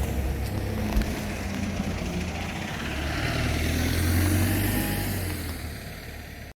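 A road vehicle passing by: engine and tyre noise swells to a peak about four seconds in and then fades away, with a single knock about a second in.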